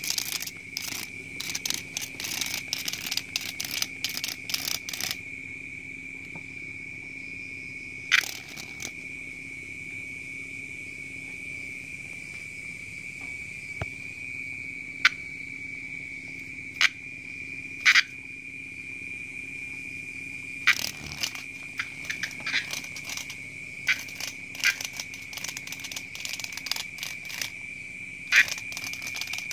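A steady high-pitched drone of night insects, with bursts of dry clicking and crackling as kittens bat at and scuffle with a cicada on wooden floorboards. The clicking is busy in the first few seconds, drops to a few single sharp clicks, then grows busy again over the last third.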